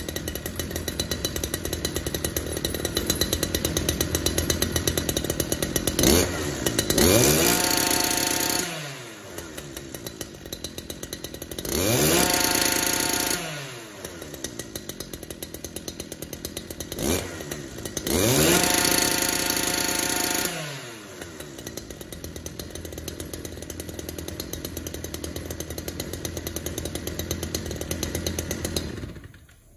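Stihl FS 240 trimmer's two-stroke engine running at idle and revved up three times, each rev rising to a high whine and falling back to idle. It cuts off near the end. The engine runs well after its pull-starter repair.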